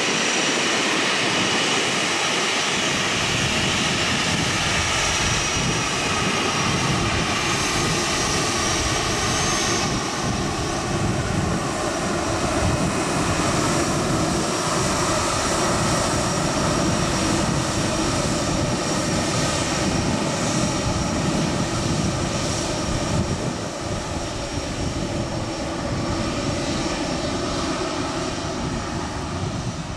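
Airbus A320's twin turbofan engines at taxi power as the airliner rolls past: steady engine noise with a high whine, most clear in the first half, easing slightly near the end as it moves away.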